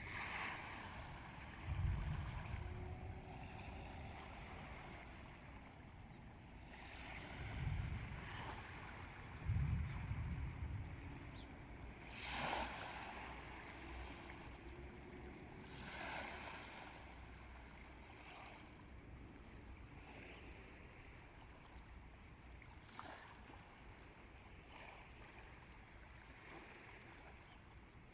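Small sea waves washing onto the shore in repeated swells every few seconds, with gusts of wind rumbling on the microphone now and then.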